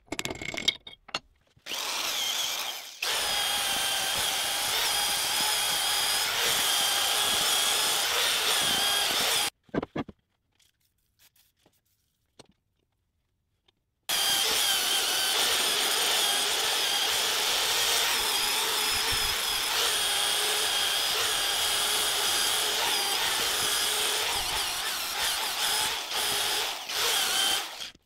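A handheld power tool running steadily in two long runs, with a pause of about four seconds between them. A few short knocks come just before the first run.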